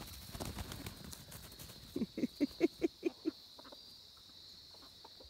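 A chicken clucking: a quick run of about seven short clucks a little past halfway. A steady high insect drone runs underneath, with faint rustling before the clucks.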